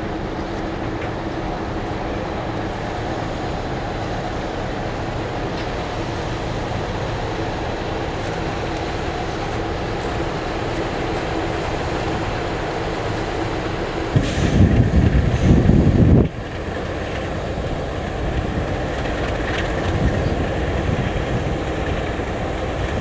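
Grand Canyon Railway diesel train running with a steady low rumble. Past the middle comes about two seconds of much louder low buffeting, which cuts off abruptly.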